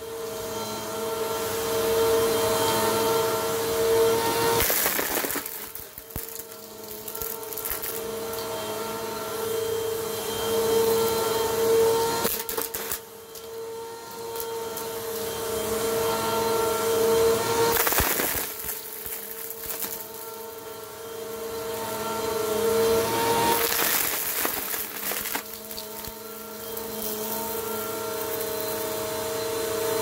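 Bissell PowerForce Compact upright vacuum running on carpet, its motor giving a steady whine over the rush of air. About four times the whine fades and a loud crunching crackle comes as it sucks up wood shavings, wooden buttons and seeds.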